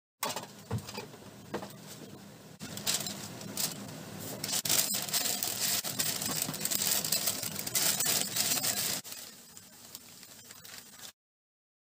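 Baking paper crinkling and rustling as hands fold it in a metal baking tray, with a few sharp knocks early on. The crinkling grows louder about two and a half seconds in and drops away at about nine seconds.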